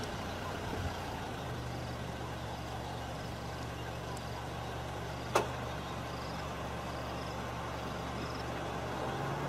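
Vehicle engine idling steadily with a low hum, and a single sharp click about five seconds in.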